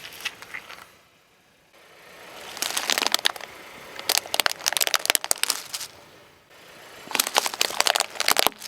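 Objects crushed under a car tyre, in three bursts of dense crackling and crunching: the first at about two and a half seconds in, a longer one from about four seconds, and a last one near the end.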